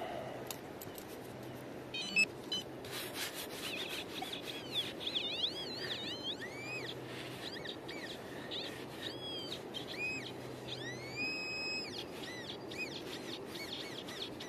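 Birds calling: a run of short chirps, each rising and falling in pitch, through the middle stretch. A few clicks sound about two to three seconds in.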